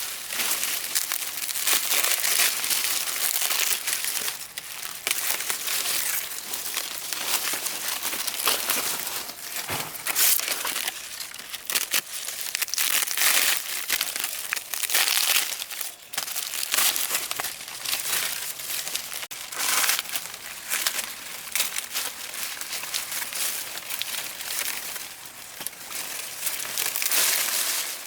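Continuous dry crinkling and rustling, with many short crackles, as of dry material being handled.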